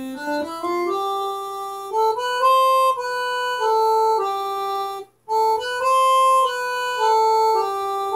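Old home organ played slowly, a melody of held, sustained notes over a lower line of notes. The playing stops briefly about five seconds in, then starts again.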